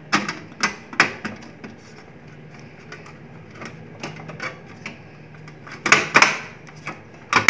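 Sharp clicks and knocks of metal and plastic parts of an HP M1005 laser printer being handled as the laser unit's cover is pressed into its locking tabs: a few clicks in the first second and a half, then a louder cluster about six seconds in and another just before the end.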